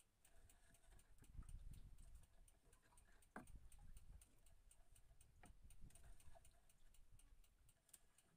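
Near silence: a faint low rumble under a faint, regular ticking at about four ticks a second.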